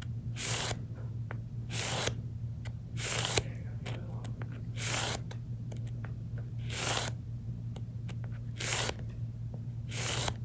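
Fiskars paper trimmer blade scraped along the edge of a sanding block, about seven short gritty strokes one to two seconds apart, sharpening the dulled blade.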